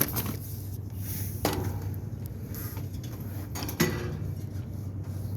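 A few sharp knocks and clatters as hard parts of a pole chainsaw are handled, the loudest near the end, over a steady low hum.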